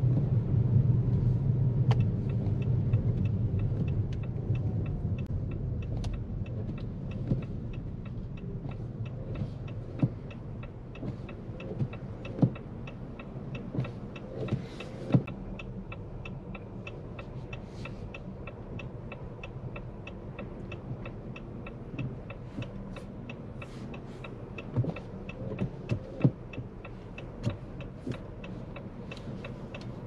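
Car-cabin sound of a Jeep Compass mild hybrid: a low rumble from the tyres and drivetrain dies away over the first few seconds as the car slows. A quiet hum stays, under a steady rapid ticking and a few scattered knocks.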